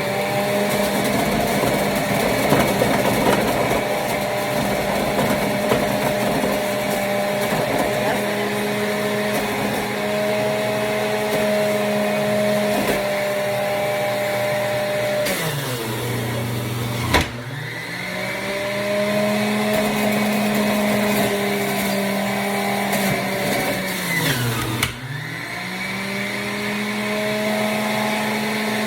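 Electric juicer motor running with a steady high hum. It slows down sharply twice, with a click at the first dip, and speeds back up each time, as it is loaded with hard produce such as carrots and beets.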